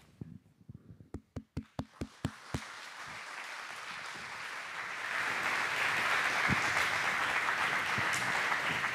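Audience applause: a few scattered single claps in the first couple of seconds, then building into full, steady clapping from the crowd that is loudest in the second half.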